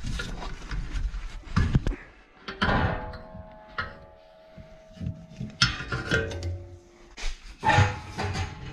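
Metal clanks and knocks from a truck's muffler and exhaust pipe being worked loose and pulled free by hand. A knock about three seconds in leaves a metallic ringing for a couple of seconds.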